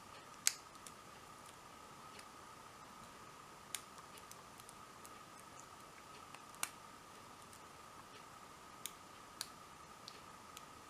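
Small sharp clicks of a lock pick and tension wrench working the pins of a 40 mm Abus My Sport padlock: a handful of scattered ticks, the loudest about half a second in, over a faint steady high hum.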